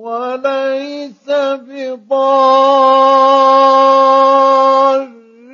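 A man's voice reciting the Quran in the melodic mujawwad style, dry with no added echo: a few short ornamented phrases, then one long steady held note of about three seconds that fades out near the end.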